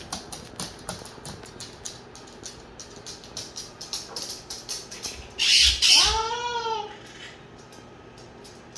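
Moluccan cockatoo screeching: a loud, harsh call about five seconds in that rises and then falls in pitch. It follows a run of quick, light clicks.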